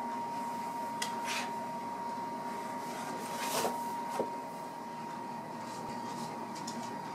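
Steady indoor room hum with a constant faint whine. A few brief soft rustles come about a second in and again around three and a half to four seconds, from a cardboard box shifting over a rug as a cat moves in it.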